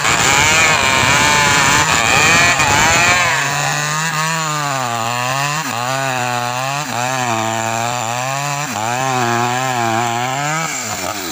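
Two-stroke Maestro CS6500L chainsaws cutting into a tree trunk: at first two saws at once, then from about three seconds in a single saw at high revs under load, its engine note sagging and recovering about once a second as the chain bites. The note breaks off near the end.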